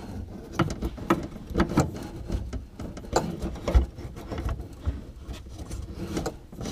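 Plastic electrical connector and camera cable being handled and fitted in a truck's tailgate cavity: irregular small clicks, taps and rattles as the backup-camera harness plug is lined up with its socket.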